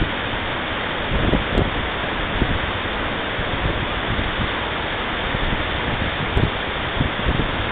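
Waterfall plunging into a rock pool: a steady, dense rush of falling and churning water, with a few brief low bumps of wind on the microphone.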